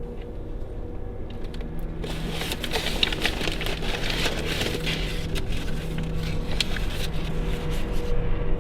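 Low steady drone of a film's background score, with a dense crackling, rustling noise from about two seconds in until near the end.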